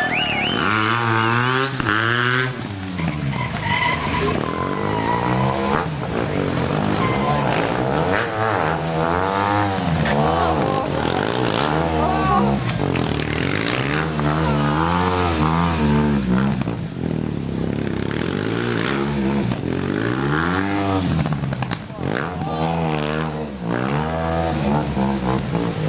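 Stunt motorcycle engine revving up and falling back over and over, every second or two, as the bike is ridden through tricks, with tyre squeal near the start.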